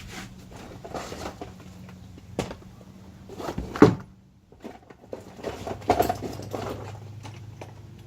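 Handling and clatter: objects being moved and set down, with scattered knocks and rustling and one loud knock a little before the middle.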